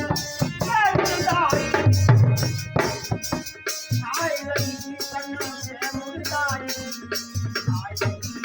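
Instrumental interlude of Indian devotional group music: fast, steady drum and shaker-like rattle percussion under a melodic instrument line that slides up and down in pitch.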